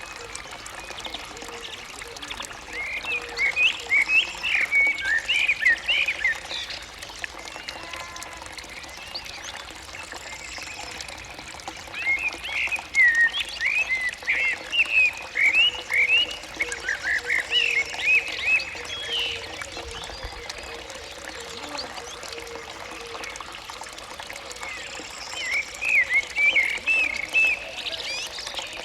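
Animal calls in three bouts of rapid, high chirps, each lasting a few seconds, over a steady background hiss.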